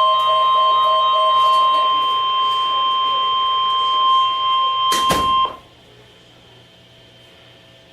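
Weather radio warning alarm tone: one steady, high beep, the single 1050 Hz tone that signals a warning such as a tornado warning. It cuts off with a couple of clicks about five and a half seconds in, leaving faint receiver static.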